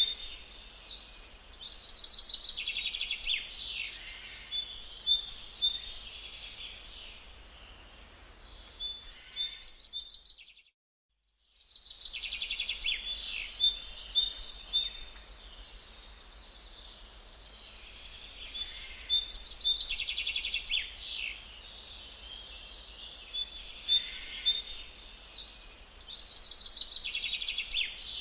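Small birds chirping and trilling in rapid high-pitched runs, coming in bursts every few seconds. The sound cuts out completely for about a second around ten seconds in, then resumes.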